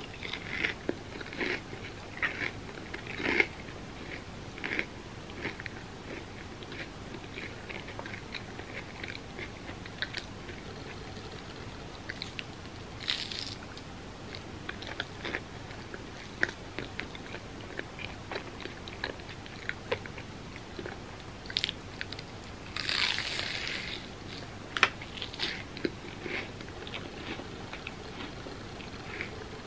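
Close-miked eating: crisp bites and crunchy chewing of fried mochi bread, many sharp crackles in irregular clusters. About three quarters of the way in there is a louder crackly burst lasting about a second.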